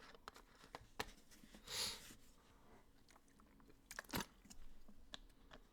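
Quiet room with a few faint scattered clicks and one short breathy noise about two seconds in.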